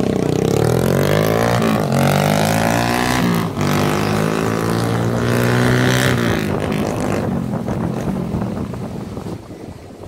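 Motorcycle engine accelerating hard through the gears, its pitch climbing, dropping back at each of two gear changes and climbing again, then falling away about six seconds in as the throttle closes and the bike coasts.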